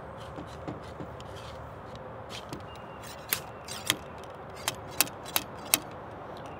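Ramrod being worked down the barrel of a Thompson Center Hawken muzzleloader, seating a patched round ball on the powder charge. A few faint taps at first, then a run of about eight sharp clicks in the second half as the ball is driven home.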